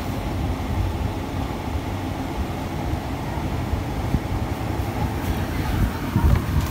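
Steady low background rumble, with a few louder low knocks of handling near the end.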